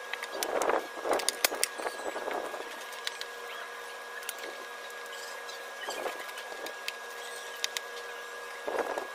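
Steel folding angle brackets being set down and shifted on plywood: scattered scrapes and sharp clicks, bunched in the first couple of seconds, again about six seconds in and near the end, over a steady background hum.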